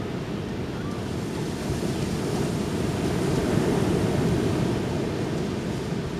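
Ocean surf washing onto the beach: a steady rush that swells to a peak about halfway through and then eases off, with wind rumbling on the microphone.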